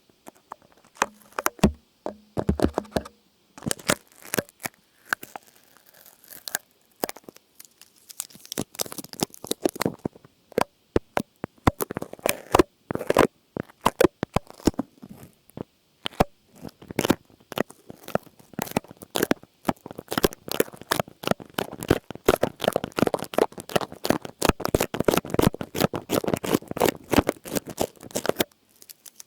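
Close-miked crinkling and crackling: rapid, irregular clicks of something being handled and crumpled, sparse at first, growing dense in the second half and stopping abruptly near the end.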